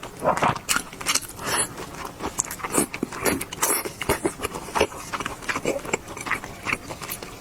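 Close-miked eating: a person chewing and biting food, with irregular clicking mouth sounds.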